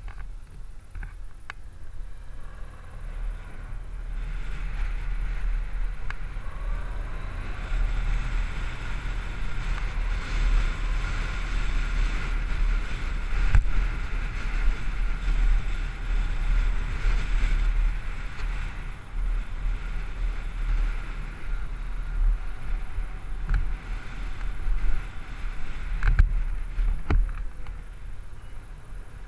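Honda DN-01's V-twin motorcycle riding along under way, heard with heavy low wind rumble on the camera. A higher whine comes in and holds as speed picks up, then fades, and there are a couple of short knocks near the end.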